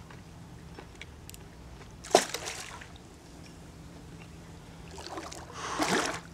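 Water splashing as a hooked fish thrashes at the surface beside a kayak: a sharp slap about two seconds in and a longer splash near the end, over a faint steady low hum.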